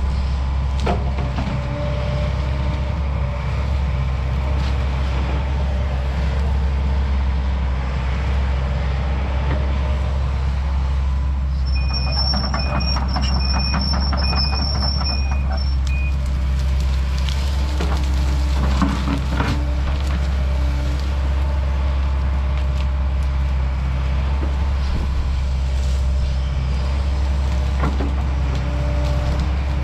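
Kobelco SK210 excavator's diesel engine running steadily under load as the machine works, with a high whine for a few seconds about twelve seconds in and a few knocks soon after.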